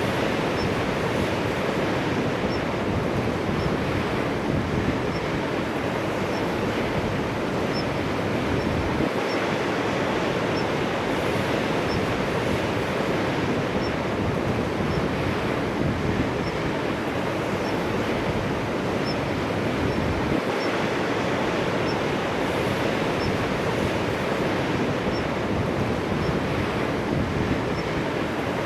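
Sea surf washing steadily onto a winter shore, an even, unbroken wash of waves with wind.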